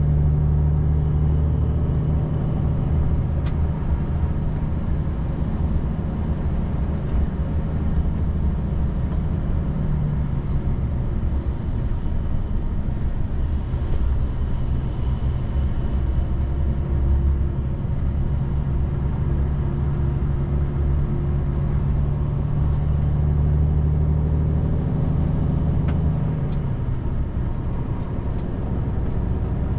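A car driving on the road: a steady low rumble of engine and tyres, its engine hum easing off around a third of the way in and strengthening again later.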